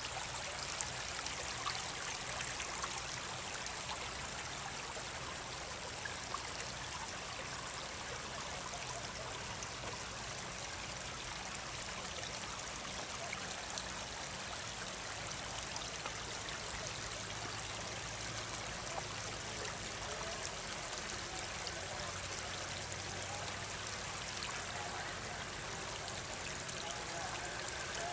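Shallow creek running over rocks and pebbles: a steady trickling of flowing water.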